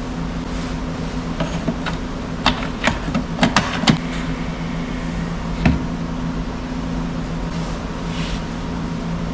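A motor hums steadily, with a few sharp clicks and knocks about a third of the way in and one more knock a little after the middle.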